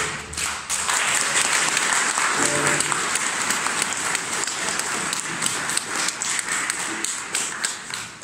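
Audience applauding after a song, the clapping dying away near the end.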